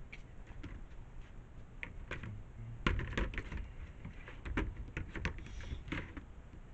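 Irregular clicks and knocks of hard plastic as the lid of a wheeled trash cart is handled, with the loudest knocks about three seconds in and again near the end.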